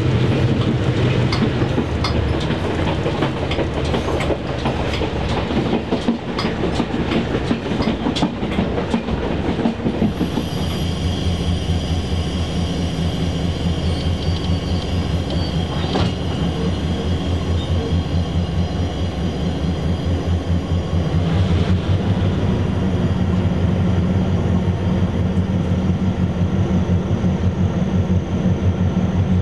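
Diesel-hauled train passing on the track: wheels click quickly over rail joints for roughly the first ten seconds. Then the steady, low, pulsing running of a diesel locomotive's engine takes over, with a faint high whine above it.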